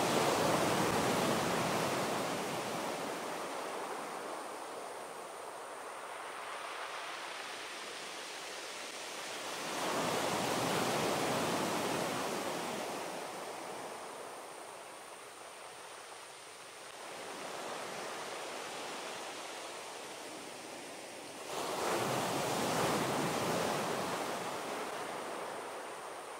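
Sea waves breaking on a beach and washing back, each surge rising quickly then fading over several seconds: a big one at the start, another about ten seconds in, a smaller one past the middle, and a big one near the end.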